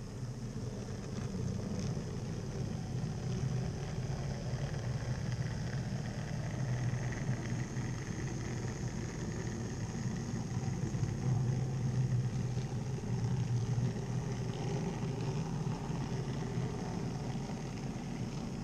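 N-scale model freight train, double-headed by two Minitrix V160 diesel locomotives, running past on the track with a steady rumble that swells a little and eases again.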